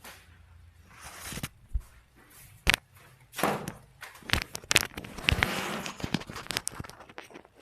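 A patient being handled and shifted on a treatment table during a chiropractic adjustment: rustling of clothing and bedding, broken by a series of sharp clicks and knocks.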